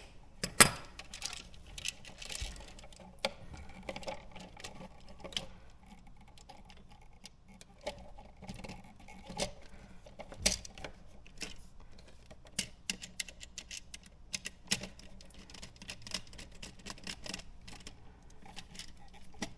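Irregular small clicks, taps and scrapes of hand work on a copper electrical wire being straightened and fitted into a USB wall outlet, with a couple of louder knocks.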